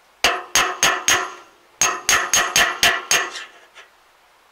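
A hammer striking the steel end of a CLAAS Rollant 46 round baler's roller, knocking at the worn roller bearing to get it off. Each blow is sharp and ringing: four in quick succession, a short pause, then about seven more at roughly four a second, the last ones lighter.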